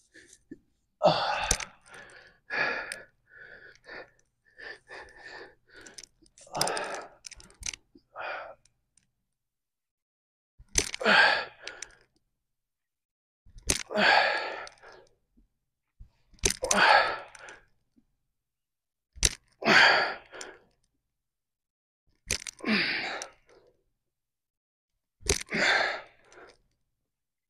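A man breathing out hard, with effort, during single-leg dumbbell deadlifts: a burst of breath about every three seconds, each opening with a short sharp click. The first eight seconds hold quicker, irregular breaths.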